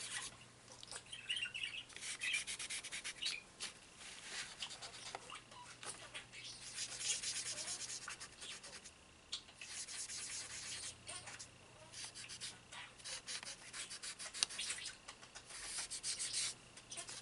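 Soft pastel being rubbed into drawing paper with a cotton applicator: quick, scratchy scrubbing strokes that come in runs with short pauses between them.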